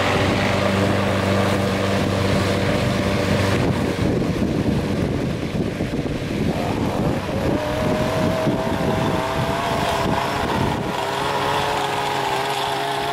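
Gas walk-behind push mower engine running while mowing, close at first and then moving away. About halfway through, a second, higher engine tone comes in and slowly rises in pitch.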